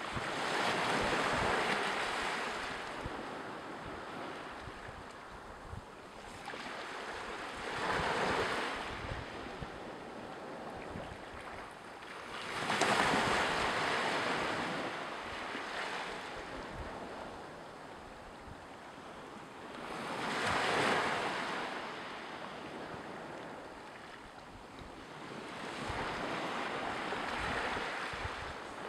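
Waves washing onto the shore, five swells of surf, one every six seconds or so, with wind rumbling on the microphone.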